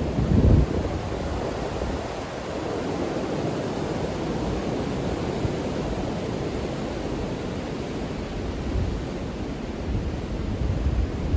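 Wind buffeting the microphone: a steady low rumble with a louder gust about half a second in.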